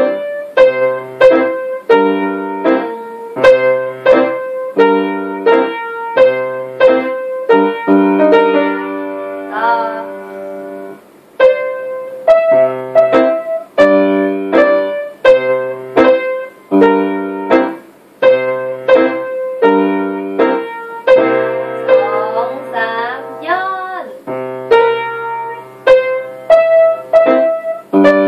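Grand piano played four-hands by a child and an adult together: a simple melody in steady, evenly spaced notes over repeating lower chords.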